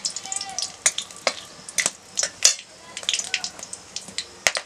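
Whole spices (dried red chillies, bay leaves, whole garam masala) sizzling and crackling in hot oil in a metal kadai, the tempering stage of a curry, with a metal spatula stirring against the pan early on.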